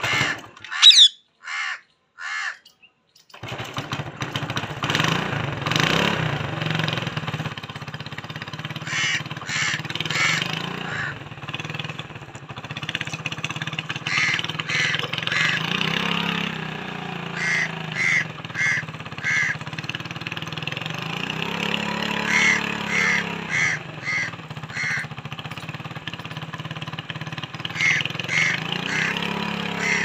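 Rose-ringed parakeet giving short, harsh calls in quick runs of four or five, about two to three a second. A steady engine hum starts about three seconds in and runs under the calls.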